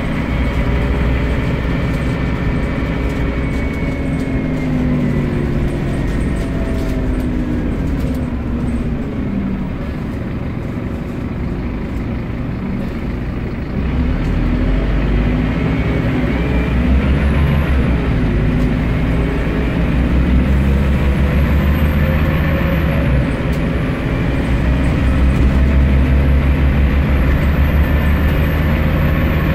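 Inside a Scania CN230UB Omnicity single-decker bus on the move: the engine drones steadily, its note falling and rising in the first half, and it grows louder from about halfway through. A thin high whine joins in during the second half.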